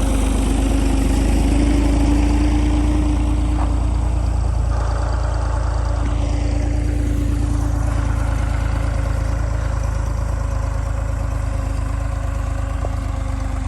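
Tractor engine running steadily at a low, even speed, slowly getting quieter.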